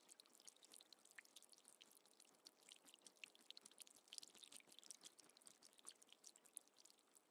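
Faint, dense crackling clicks of a rabbit chewing and pulling hay.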